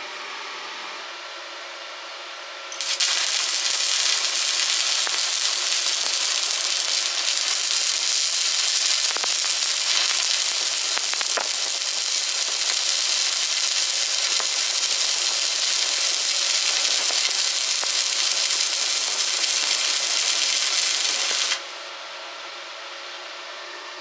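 Electric welding arc burning steadily in one long run of about nineteen seconds, a loud even crackling hiss with scattered pops. It strikes up suddenly about three seconds in and cuts off sharply near the end.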